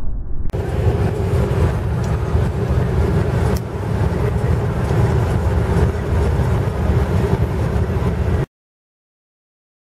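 Steady in-cabin drone of a Ford Mondeo Mk3's 2.2 TDCi four-cylinder turbodiesel cruising at about 2,000 rpm and 110 km/h, mixed with tyre and road noise. The sound cuts off abruptly about a second before the end.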